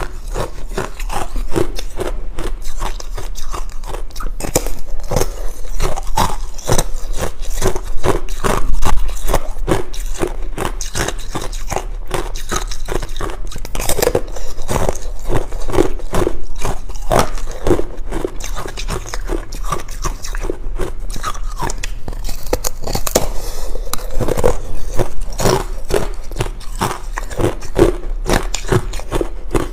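Ice being bitten and chewed close to the microphone: a dense, irregular run of loud crunches.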